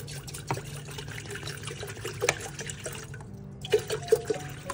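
Water pouring from a plastic bottle into a stainless steel electric kettle, the stream splashing against the metal, with a few louder splashes about three-quarters of the way in.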